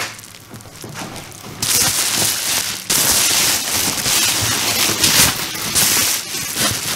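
Bubble wrap and paper packaging rustling and crinkling as hands dig through a parcel. Soft at first, then loud and crackly from about a second and a half in until near the end, with a short break about three seconds in.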